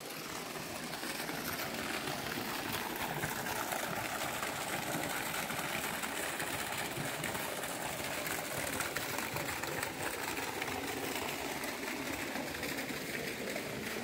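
Steady rushing of falling water from a waterfall and the stream below it, an even hiss with no pauses.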